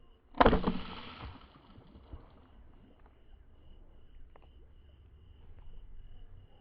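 A single dart shot fired at a fish: a sharp crack and whoosh about half a second in, trailing off over about a second.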